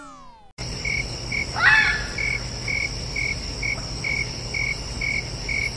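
Night ambience of crickets chirping about twice a second over a steady high insect trill, with one short rising-then-falling call about a second and a half in. It starts just after a falling-pitch whistle sound effect fades out in the first half second.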